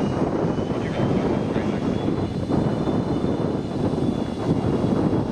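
Jet aircraft's engines, a loud, steady rumble with a faint high whine above it, cut off abruptly at the end.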